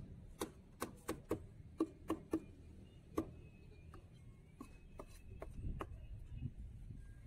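Knife chopping food on a cutting board: about eight sharp, irregular chops in the first three seconds or so, then fewer, fainter knocks, with a faint high steady tone in the background.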